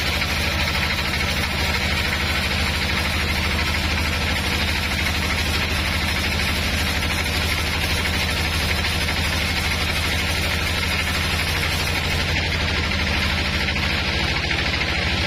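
Large band sawmill running steadily, its motor and blade giving a constant low hum with a rushing noise over it.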